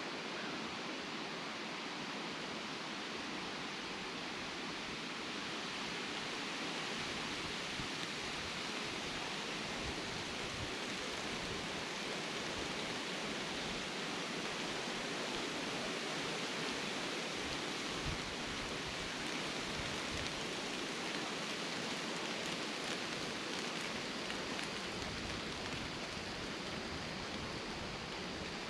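Steady woodland ambience: an even rushing hiss with no distinct events.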